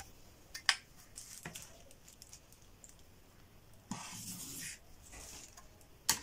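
A red felt-tip marker scratching along a plastic French curve as it draws a curved line on pattern paper, a rustling hiss about four seconds in. A sharp clack near the end as the plastic curve is handled.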